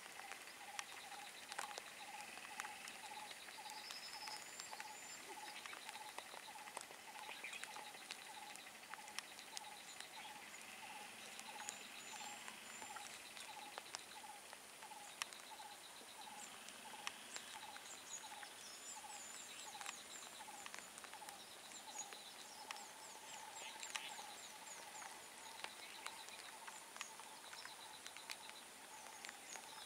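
Faint birdsong: one bird repeats a short, low note about twice a second while others chirp and twitter higher up, with a few scattered sharp clicks.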